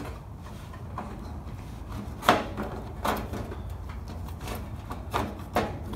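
A few light knocks and rubs as wires are worked through a hole in a sheet-metal cabinet, the sharpest knock about two seconds in, over a steady low hum.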